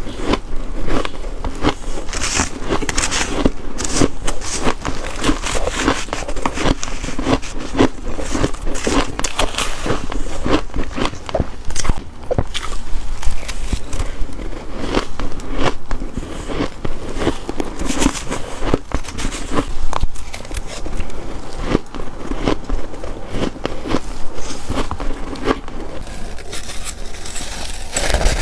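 Close-miked biting and chewing of freezer frost: a dense run of crisp crunches.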